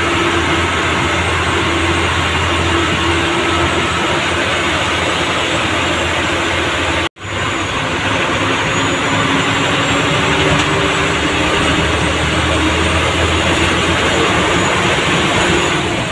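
MSRTC bus's diesel engine running under way, heard from inside the cabin over a steady hiss of road and wind noise. The sound cuts out for an instant about seven seconds in.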